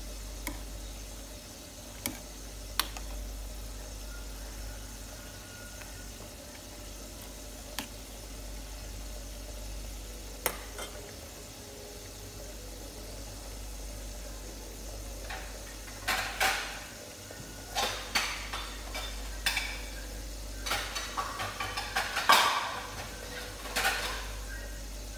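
Metal ladle stirring and knocking against a metal soup pot, a few sharp clicks at first, then a dense run of clinks and clatter about two-thirds of the way through, over a steady low hum.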